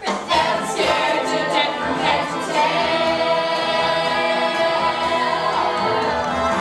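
A group of children singing together as a chorus in a stage musical number, holding one long note from about three seconds in.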